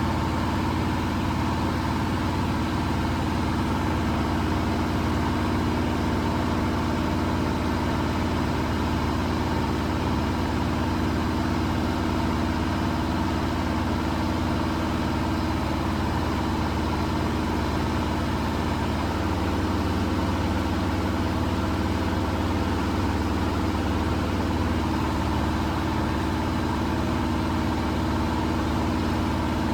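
Miele Professional laundry machine running steadily, a constant motor hum with several steady tones.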